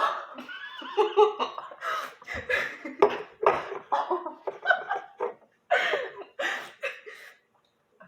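People laughing, in repeated bursts of voice one after another, dying away shortly before the end.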